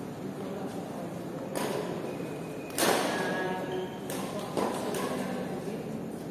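Badminton rackets striking the shuttlecock during a rally: a sharp hit about a second and a half in, a loud one near three seconds that rings on in the hall, and three more hits about four to five seconds in.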